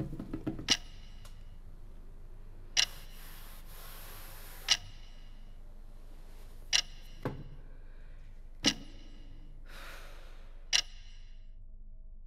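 A sharp, ringing tick every two seconds, evenly spaced, with an extra softer click partway through. Faint hissy swells come in between some of the ticks, over a low steady hum.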